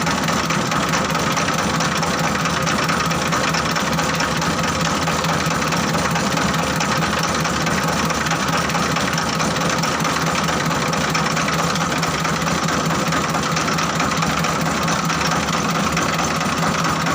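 Diesel engine of a mobile rice huller running at a steady speed, with the mill's mechanical noise over it and no change throughout.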